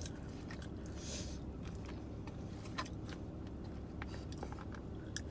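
Quiet eating sounds inside a car: a few faint scattered clicks and a soft rustle about a second in, over a steady low hum.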